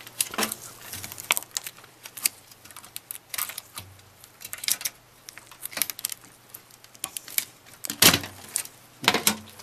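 Computer case's front bezel being unlatched and pulled open by hand: a run of scattered clicks and rattles, with a louder clatter about eight seconds in.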